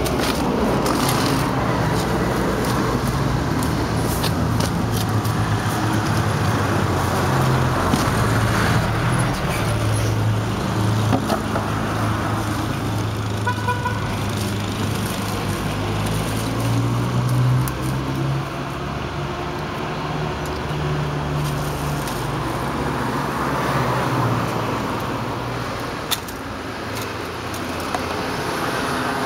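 A motor vehicle engine runs nearby over steady street traffic noise, its low hum drifting in pitch. Scattered rustles and clicks come from plastic bags being handled.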